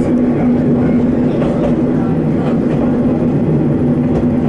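Haimo 330 diesel railcar under way, heard from inside the car: a steady diesel engine drone over the rumble of wheels on rail, with a few faint ticks.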